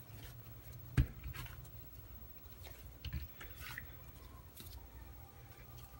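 Hands pulling soft bread dough apart and setting the pieces down on a silicone baking mat, soft handling sounds with a single sharp knock about a second in, over a low steady hum.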